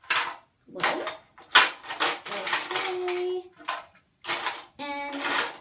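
Makeup brushes clattering as they are dropped and shuffled into a clear plastic organizer, the handles clacking against the plastic and each other in a run of quick knocks.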